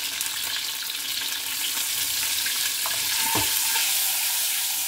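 Whole boiled eggs sizzling in hot oil in a frying pan, a steady hiss, with a light knock or two a little over three seconds in.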